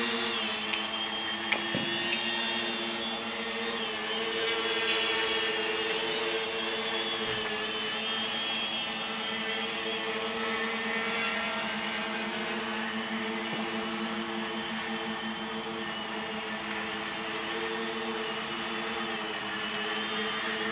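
RC tricopter's three electric motors and propellers buzzing steadily in flight, the pitch wavering slightly as the throttle changes.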